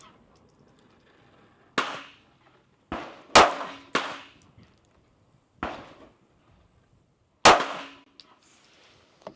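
Canik METE MC9L 9mm pistol firing Monarch ammunition: six sharp shots at uneven intervals over about six seconds, some louder than others.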